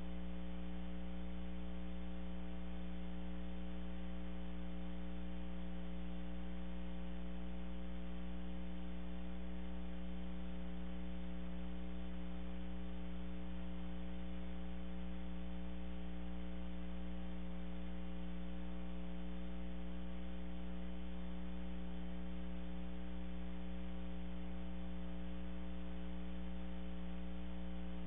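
Steady electrical mains hum, a constant buzzing drone with several overtones, over an even background hiss; it does not change throughout.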